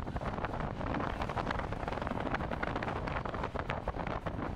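Strong wind buffeting the microphone in irregular gusts over a steady, deep rushing roar from a large wedge tornado.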